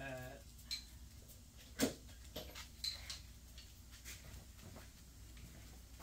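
Short hummed voice sound at the start, then scattered light metallic clinks and knocks of steel sockets being picked out of a socket set, the loudest about two seconds in.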